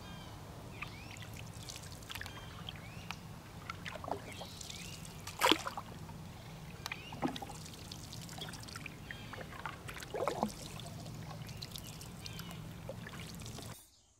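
Canoe paddling on calm water: the paddle blade dipping, splashing and dripping, with a few sharp sudden sounds, the loudest about five seconds in. Short bird chirps come and go over a steady low hum.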